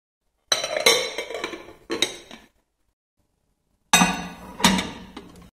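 A glass lid clinking down onto a glass bowl, three ringing clinks. Then two knocks as the covered glass bowl is set down inside a microwave.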